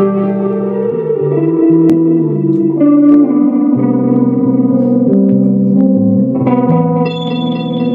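Electric guitar running through a Noisekick Howler feedbacking tremolo pedal, the feedback loop sounding as sustained electronic tones that jump from pitch to pitch about every half second while the pedal's knobs are worked. Near the end the sound turns brighter and rougher.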